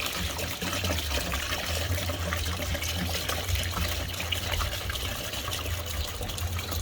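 Gasoline being poured from a bottle back into a bucket, trickling and splashing steadily over a low steady hum.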